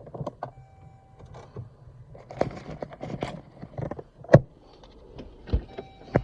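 Car door handled as the driver gets out: clunks and thuds, the loudest a little past four seconds in, with rustling between them, and a short electronic tone that sounds twice.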